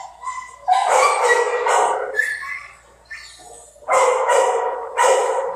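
Dogs barking repeatedly in a kennel. There is a run of loud barks about a second in, a quieter spell around the middle, and more loud barks from about four seconds in.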